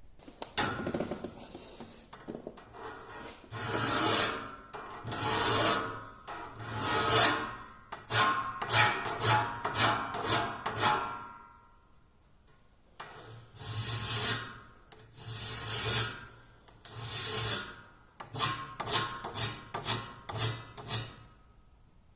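Flat hand file rasping across the teeth of a Wood-Mizer bandsaw blade, sharpening it. The work comes in two rounds of about three long strokes and then a run of quick short strokes, with a pause of about a second and a half between the rounds.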